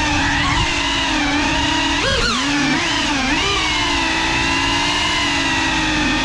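Cinewhoop FPV drone (GEPRC CineLog35) with its brushless motors and ducted propellers whining steadily. The pitch swings up and back down sharply with throttle about two seconds in, and again about three and a half seconds in.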